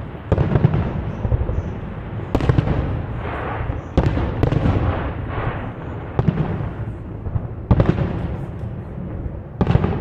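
Aerial fireworks bursting, with several sharp bangs a second or two apart, each followed by crackling and a rolling echo.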